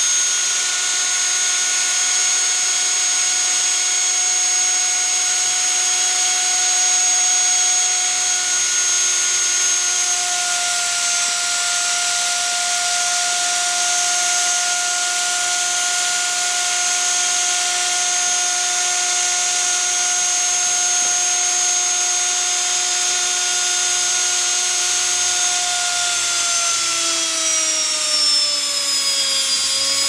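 Washing machine universal motor, wired as a series motor, running fast with no load: a steady high whine over a hiss from the brushes on the commutator. Near the end the whine drops in pitch as the motor slows, then begins to rise again.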